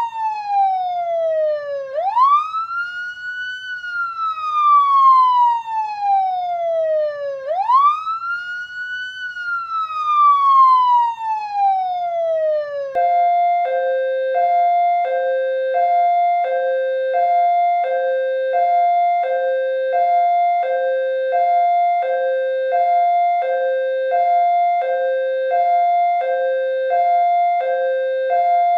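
Police siren wailing: each slow downward sweep ends in a quick rise back up, about every five and a half seconds. Partway through it switches abruptly to a two-tone hi-lo, alternating between two pitches about every half second.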